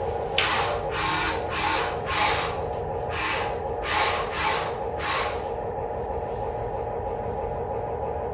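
A run of about ten short scraping or rubbing strokes, roughly two a second, that stop about five seconds in, over a steady whine.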